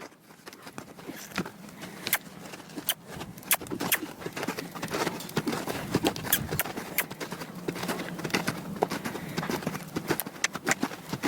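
Hoofbeats of a mustang being lunged, a quick, irregular run of hoof strikes on the ground that grows louder about a second in.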